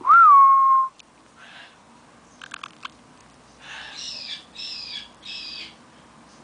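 A white-bellied caique's loud whistle, a short rise then a held note, followed by a few quick clicks and three short, harsh chattering calls as it plays on its back.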